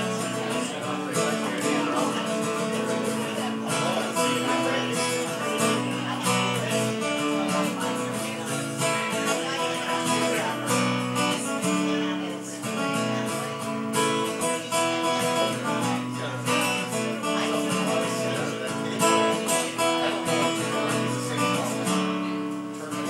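Acoustic guitar being strummed through a changing chord progression.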